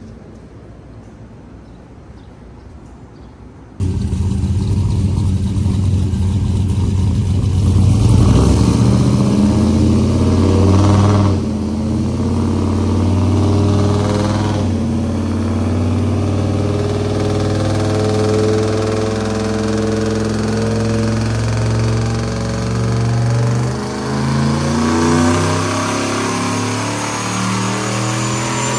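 Turbocharged LS V8 pickup engine running hard on a chassis dyno. After a fairly quiet opening, its sound comes in suddenly about four seconds in, grows louder for a few seconds, then holds a steady drone.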